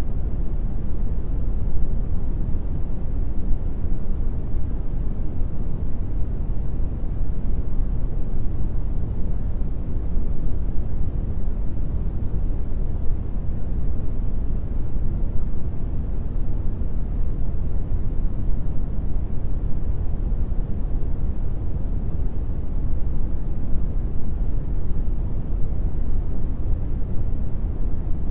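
Steady brown noise: an even, deep rumbling hiss, strongest in the bass and fading toward the treble, with no change or events.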